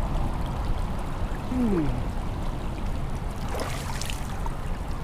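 Steady rush of heavy rain coming down, with a couple of faint brief splashes.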